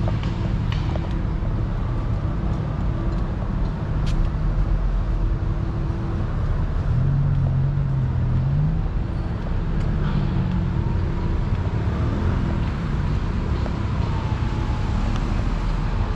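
Road traffic: car engines running close by with a steady low rumble, one engine's note rising briefly about seven seconds in as it pulls away.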